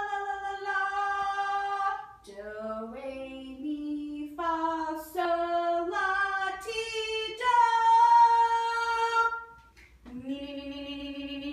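A woman singing solo and unaccompanied, holding a series of notes that step up and down. Her loudest part is a long high note about two-thirds of the way through, followed by a short break and a lower held note.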